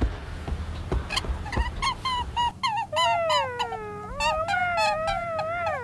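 High, wavering animal cries, cat-like: a run of short yowls, then one long howl that dips and rises again, lasting almost three seconds.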